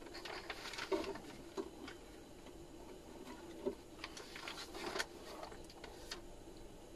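Scattered light clicks and taps from handling on a workbench, irregular, the sharpest about a second in and twice more later, over a faint steady hum.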